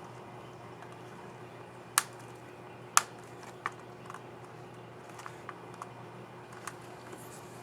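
Plastic clicks from an HP 15 CR0062ST laptop keycap and its scissor mechanism being handled and pressed: two sharp clicks about a second apart, a lighter one just after, then a few soft ticks.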